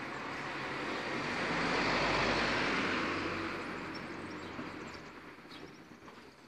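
A vehicle passing by, its noise rising to a peak about two seconds in and then fading away.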